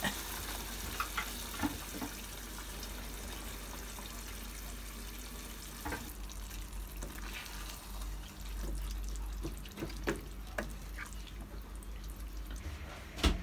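Saucepan of tomato-based lentil stew cooking on a low gas flame, giving a steady sizzling hiss with a few light clicks. Near the end a wooden spatula stirs it, with one sharp knock against the pan.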